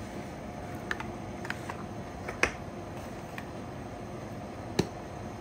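Metal spoon stirring yogurt and spices in a glass measuring jug, making a few scattered clicks against the glass. The sharpest clicks come about halfway through and again near the end.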